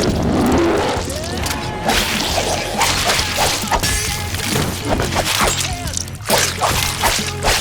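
Rapid fight sound effects: a quick string of whooshes and sharp hits, over background music.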